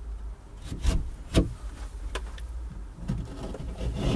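Stanley knife blade scraping and cutting through plasterboard in short, sharp strokes, the clearest about one, one and a half and two seconds in.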